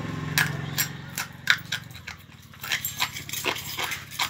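Sharp, irregular crunching of thin light-bulb glass being chewed, coming faster in the second half. A low hum underneath fades out about halfway through.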